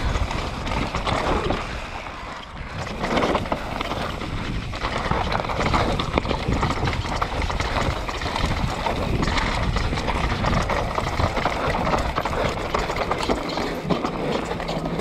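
Mountain bike running fast down a dry, stony singletrack, heard from a bike- or rider-mounted camera: a dense rush of wind and tyre noise over loose gravel, with constant small knocks and rattles as the bike hits rocks and bumps.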